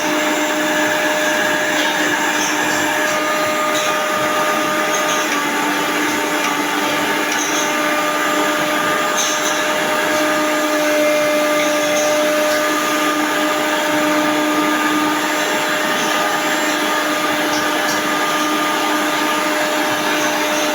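Jyomix mixer grinder's motor running at a steady high speed, a loud even whine with no change in pitch.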